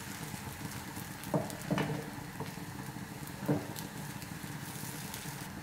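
Thin rice-flour neer dosa batter sizzling and crackling steadily on a hot pan over a high flame, with three short scrapes of a steel ladle against the pan in the first half.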